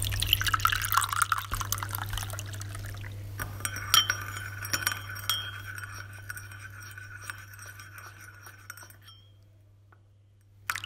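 Tea being poured into a cup with a steady rushing splash, then a spoon clinking against the china a few times, the ringing dying away, over a steady low hum.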